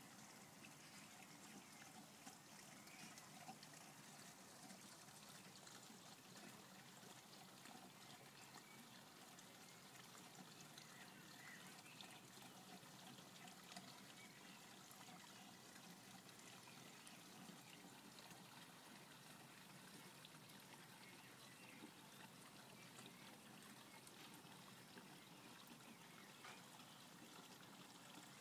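Faint, steady trickle of water running into a garden fish pond.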